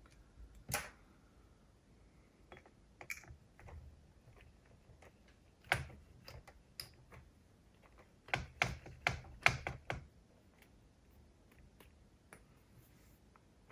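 Scattered clicks and light taps of small cassette-deck transport parts and tools being handled during reassembly, with a quick run of sharper clicks between about 8 and 10 seconds in.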